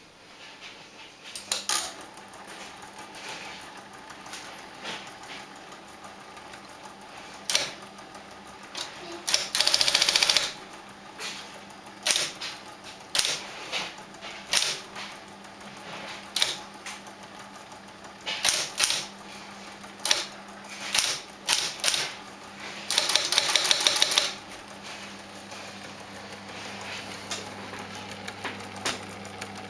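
1959 Smith Corona Electric typewriter: its motor hum starts a moment in, and keys strike one at a time in sharp clicks. Twice there is a rapid run of strokes lasting about a second, and a deeper hum joins near the end.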